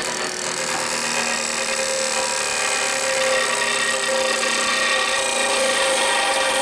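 A power tool grinding steel, running steadily under load, then cutting off abruptly right at the end.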